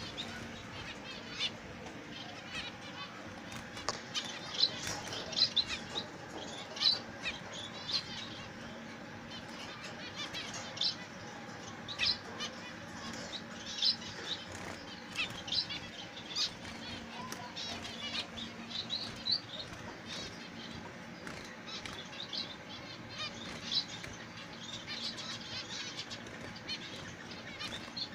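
Zebra finches calling with short, high chirps at irregular intervals, several in quick succession at times, mixed with the flutter of wings as birds flit about the cage.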